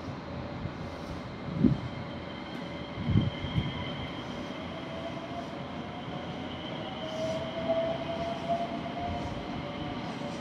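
JR West 227 series 'Red Wing' electric train standing at the platform, its onboard electrical equipment giving a steady hum with faint whining tones over a hiss. A couple of soft low thumps come in the first few seconds.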